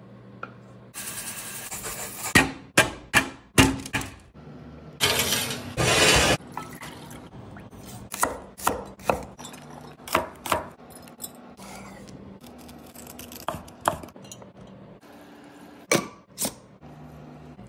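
Kitchen prep sounds one after another. A quick run of five or six sharp knocks, like a knife chopping on a cutting board. About a second and a half of steady rushing noise. Then scattered clinks and knocks from a saucepan and a glass jar being handled, ending in two sharp knocks.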